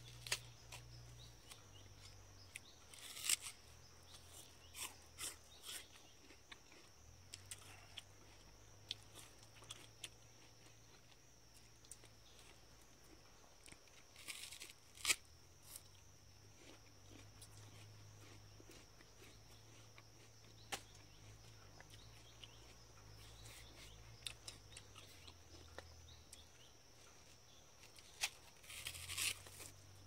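Scattered crackles, snaps and tearing of plant stems and leaves being handled, a few louder ones about 3 seconds in, around the middle and near the end, over a faint steady high-pitched insect drone.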